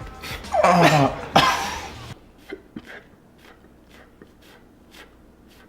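A man's voice making a loud vocal sound effect about half a second in, falling in pitch with a breathy hiss, for about a second and a half. It is followed by faint scattered clicks.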